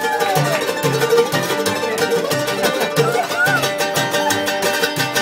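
Acoustic folk band playing an instrumental passage: mandolin and acoustic guitar strumming over an upright bass plucked about twice a second.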